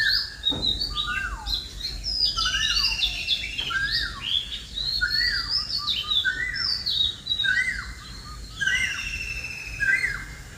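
Several birds singing and chirping together: fast high trills and sweeping notes overlapping, with a short chirp repeated about once a second beneath them.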